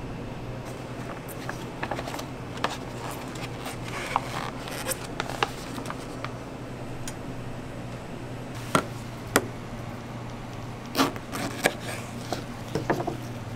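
Scattered light clicks and knocks of food handling as a crepe is set into a paper holder, then a kitchen knife cutting through a banana onto a plastic cutting board near the end, over a steady low hum.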